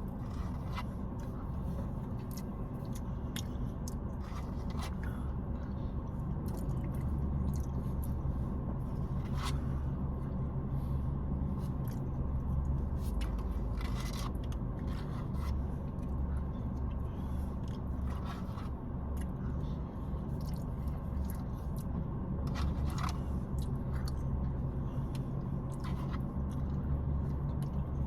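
Eating sounds: a utensil scraping a bowl of mashed potatoes and gravy, with chewing and scattered short clicks, over a steady low hum.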